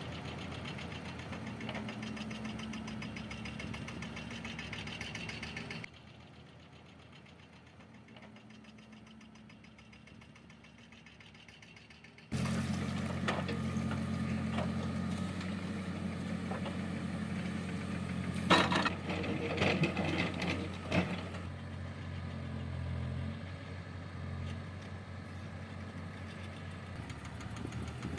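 Diesel engine of heavy earth-moving machinery running steadily. The sound jumps abruptly in level twice: it is quieter from about 6 to 12 seconds in, then louder. About two-thirds of the way through, a cluster of loud knocks and clanks sounds over the engine.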